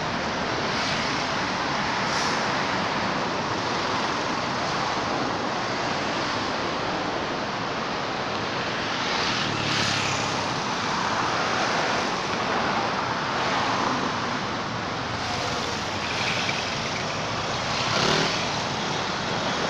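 Steady road traffic noise, with louder swells as vehicles pass about halfway through and again near the end.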